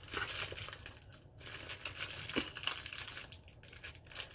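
Thin clear plastic packaging crinkling as it is handled, in irregular crackles with a couple of short pauses.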